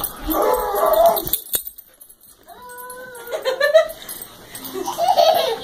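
Dogs play-wrestling, one of them making whining, moaning vocal sounds in three bouts, the pitch sliding up and down.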